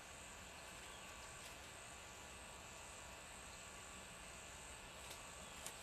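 Faint outdoor insect chorus: a steady, high-pitched trilling. A few faint clicks come near the end.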